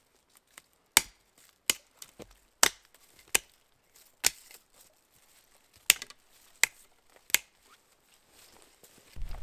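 Hatchet chopping a dry dead branch: about ten sharp knocks at uneven spacing, with quiet between them, as the wood is cut up for a fire.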